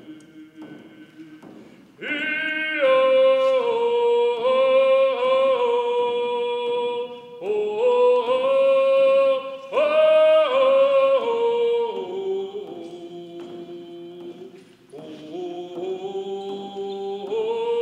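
A man singing a traditional Coast Salish song in a strong, loud voice. It starts about two seconds in, with long held notes in phrases that step downward in pitch.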